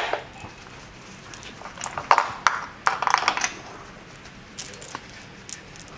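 Sharp clicks and metallic clinks of a compression tester's gauge, hose and screw-in adapter being handled over the cylinder head, with a loud click at the start and a cluster of clatter about two to three seconds in. This is the tester being disconnected between cylinder readings during an engine compression test.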